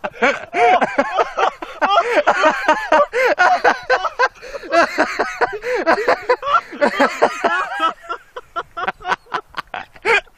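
Loud, hard laughter from more than one person, in rapid overlapping bursts that break into shorter gasping bursts near the end.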